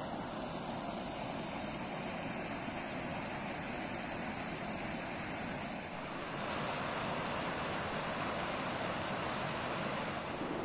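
Water rushing over a low weir on a small river: a steady rush that gets louder about six seconds in.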